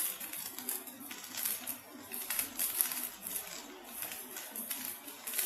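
Spatula clicking and scraping irregularly in a wok of frying rice vermicelli, over a faint steady sizzle.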